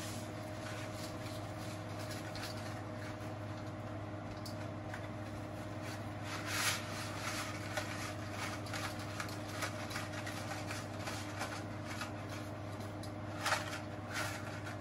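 Dry spaghetti rattling and sliding out of its cardboard box into a pot, with short louder rustles about six and a half and thirteen and a half seconds in, over a steady low hum.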